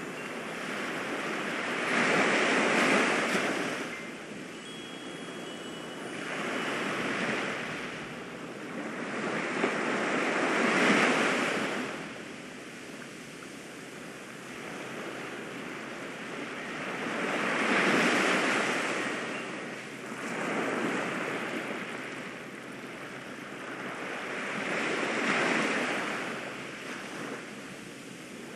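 Ocean waves washing ashore, six slow swells of surf that build and recede over a few seconds each.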